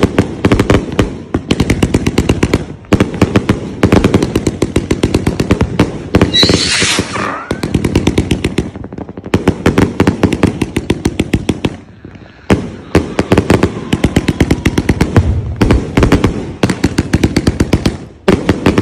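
Aerial fireworks going off in a rapid barrage: dense bangs and crackling pops many times a second, with a brief lull about twelve seconds in and another near the end. There is a short high hiss about six seconds in.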